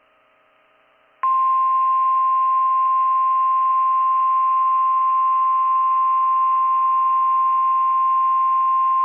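NOAA Weather Radio 1050 Hz warning alarm tone: after about a second of silence, one steady, loud, single-pitched tone comes on and holds. It signals that a new warning message is about to be broadcast.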